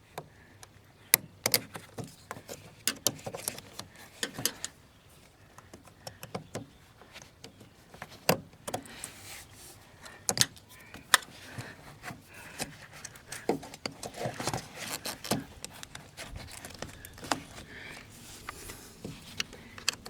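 Irregular sharp clicks, taps and rubbing as a pick tool works at the plastic push-button wiring connectors of a 2010 Jeep Patriot's door harness, trying to release them.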